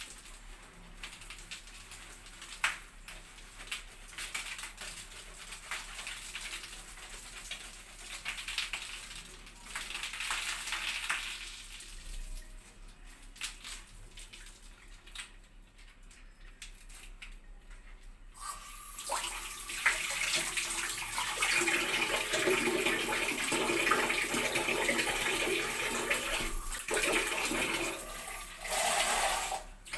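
Soft squelching of shampoo lather being worked through long wet hair by hand. A little past halfway, water starts running and splashing loudly and steadily, with a short break near the end.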